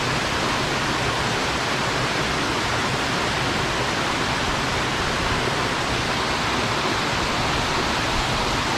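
Waterfall water rushing steadily, an even unbroken hiss.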